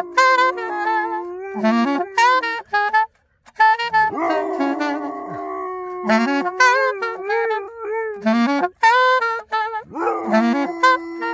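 A saxophone playing a melody in short phrases while an Afghan hound howls along, each howl sliding up and then holding one long note. The dog joins twice, about four seconds in and again near the end.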